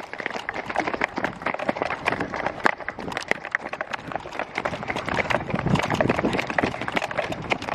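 A rapid, irregular clatter of sharp knocks and taps, several each second.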